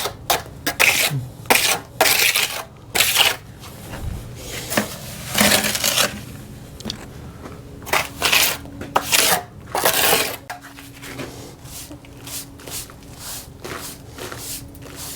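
Hands pressing and squeezing hydraulic cement into a crack in a concrete foundation wall: irregular rubbing and scraping noises, louder in the first half.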